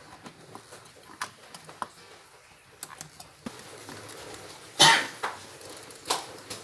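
Scattered light clicks and taps from wires and plastic wire connectors being handled, with one much louder short burst just before five seconds in.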